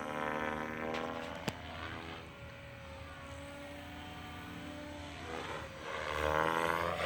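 SAB Goblin 380 electric RC helicopter flying 3D manoeuvres, its rotor and motor pitch dipping in the middle and rising again near the end as the load on the blades changes. A sharp click comes about one and a half seconds in.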